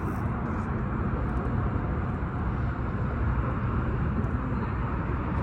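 Steady low rumble of a boat motor running under way, with water and wind noise mixed in.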